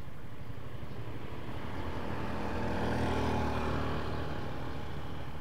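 A motorcycle passes on the road: its engine grows louder, peaks about three seconds in, then fades away, over a steady low rumble.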